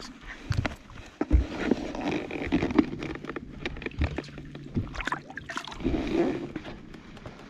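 Knocks, clunks and rattles of handling on a fishing boat, with a steady low hum running through the middle few seconds.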